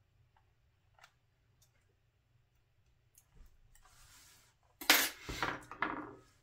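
Handling clatter: a soft rustle of a towel being shifted, then a quick run of sharp clinks and knocks as metal tweezers are set down and a plastic model car chassis is turned over on the towel.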